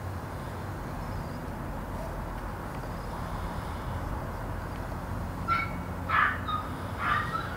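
A dog barking three times in quick succession, starting a little past halfway through, over a steady low background rumble.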